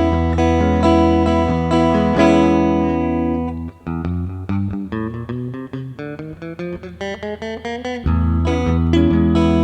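Guitar music: chords ringing over a strong sustained low bass, which drops away about four seconds in to a run of single picked notes, before the full sound comes back near the end.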